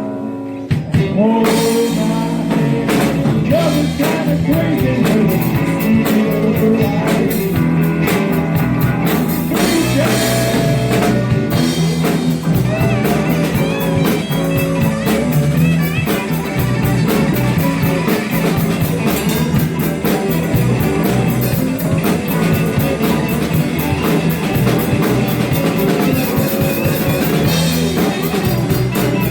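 Blues band playing an instrumental stretch: a guitar plays bending lead lines over bass and a drum kit, after a brief stop in the first second.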